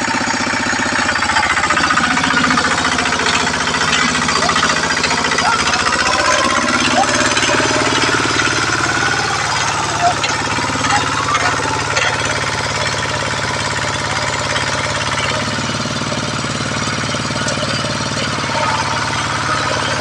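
A walking tractor's single-cylinder diesel engine runs hard as it drags a loaded wooden cart through deep mud, knocking fast and steadily. Its pitch shifts about six to seven seconds in as the load changes. Voices of the men pushing come through over it.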